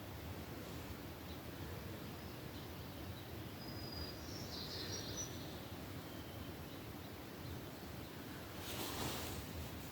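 Quiet forest ambience with faint, distant birdsong: a few short, high chirps around the middle. A brief rustle comes near the end.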